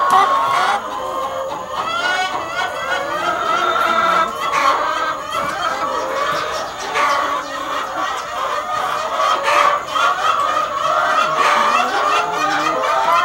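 A flock of brown laying hens clucking and calling, many voices overlapping without a break.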